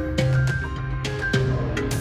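Instrumental music with a steady percussive beat, a held bass note and short melodic notes.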